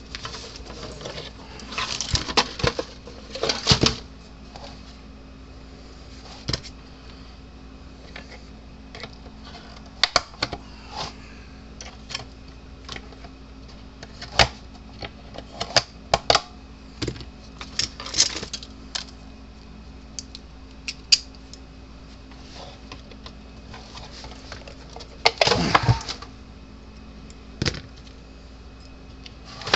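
Clicks, knocks and scraping of hand tools prying and breaking out a stuck plastic fuse mount from a fence charger's case. Longer scraping bursts come a couple of seconds in and again near the end, over a steady low hum.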